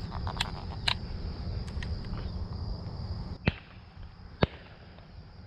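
Steady high drone of insects in a sunflower field, with knocks and rustling in the first three seconds. Two sharp cracks about a second apart come near the end.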